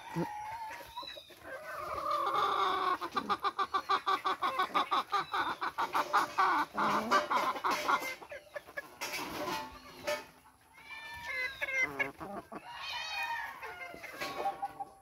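Domestic hens clucking and calling: a long run of rapid, pulsed clucks through the middle, then a few shorter calls near the end.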